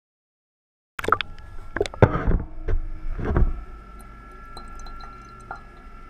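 Water sloshing with several sharp knocks, heard muffled from underwater inside a bucket, then settling into a quieter steady hum.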